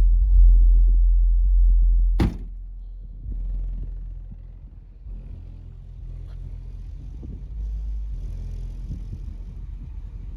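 Deep sub-bass from a single 10-inch subwoofer in a 4th-order bandpass enclosure holds for about two seconds after the music's upper parts stop, then cuts off with a sharp click. A low, uneven rumble of wind on the microphone follows.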